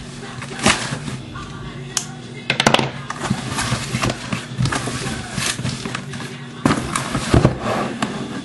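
Cardboard and plastic packaging being handled as trading card boxes are taken out of their case: rustling and crinkling, with several sharp clicks and snaps about two to three seconds in.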